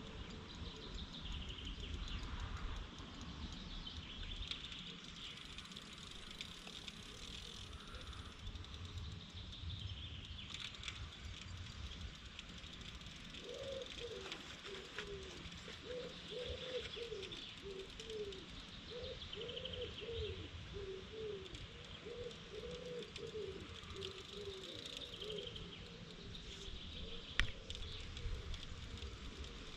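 A dove cooing, a run of repeated low calls that starts about a third of the way in and goes on for about twelve seconds. Small birds chirp throughout, and wind rumbles on the microphone. A single sharp click comes near the end.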